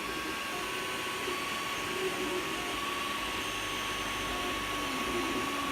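Creality Ender 3 3D printer running a print: steady fan whir with a thin constant whine, and stepper motors humming in tones that keep shifting in pitch as the print head and bed move.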